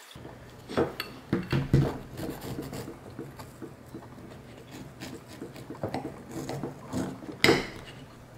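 A table knife sawing through a crisp cheese cookie filled with cream cheese on a ceramic plate: rough scraping and crunching of the crust, with sharp clicks and knocks, the loudest about a second in, near two seconds and near the end.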